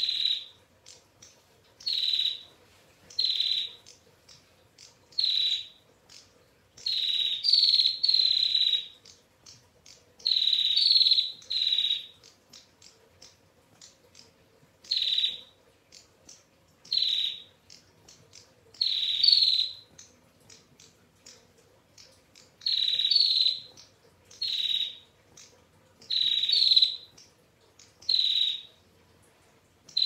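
Female prenjak calling over and over in rapid trilled bursts ('ngetir'): short raspy calls every second or two, some running together into longer strings lasting a second or more.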